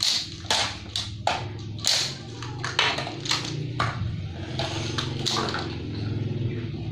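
Hard plastic toys and a plastic basket being handled, knocking and clattering on a tiled floor in irregular clacks about every half second.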